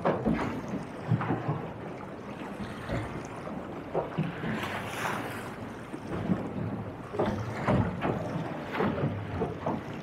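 Choppy sea slapping against the hull of a small boat, with wind buffeting the microphone; irregular knocks of waves on the hull and a hissing wash of water about five seconds in.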